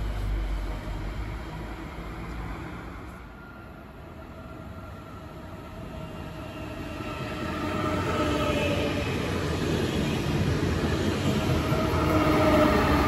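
TER Bombardier AGC multiple unit approaching and passing close by. Its running noise grows from about four seconds in to its loudest near the end, with a steady whine from the traction equipment. At the start, the low rumble of a train that has just gone by fades out.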